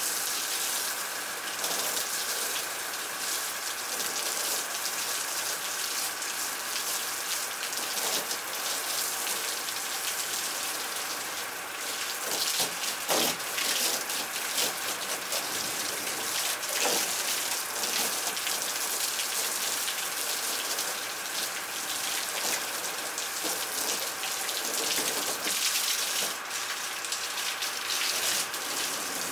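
Water from a hose spray nozzle pattering on the plastic hull of an upturned boat and splashing onto wet concrete: a steady, rain-like spray with irregular splashes.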